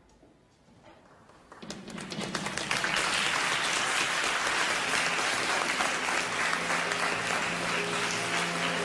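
Audience applause starts about one and a half seconds in and swells quickly to steady, dense clapping. A few soft sustained music notes come in near the end.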